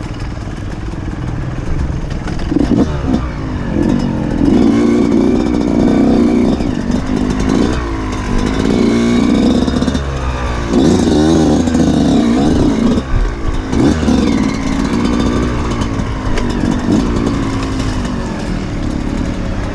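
Off-road motorcycle engine revving up and down repeatedly as it is ridden over a cross-country race course.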